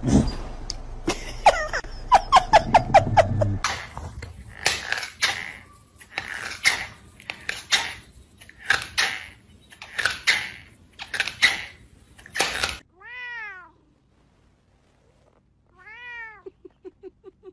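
A cat gnawing a plastic slipper: a string of short rasping noises, about one a second, after a quick run of squeaky calls at the start. After a short pause, a kitten meows twice, the second meow followed by a quick stuttering chirp.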